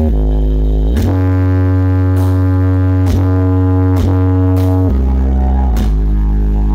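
A DJ track played very loud through a stacked horeg sound system of subwoofer cabinets. Long, buzzy bass notes hold and then slide to a new pitch about once a second, with the deep bass dominating.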